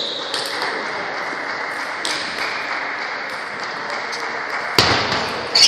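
Table tennis balls clicking off paddles and tables over the steady din of a busy hall with several tables in play. A loud hit comes just before the end, then a quick run of ringing ball clicks as a rally starts.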